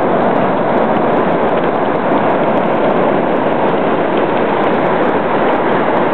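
Pacific Ocean surf breaking and foaming up the beach: a steady, loud rush of water noise.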